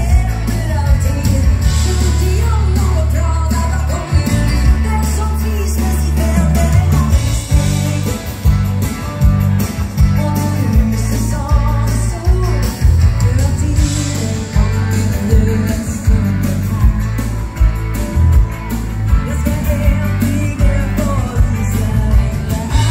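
Live amplified dansband music: a female singer over electric guitar, keyboards and drums, with a heavy bass line and a steady dance beat.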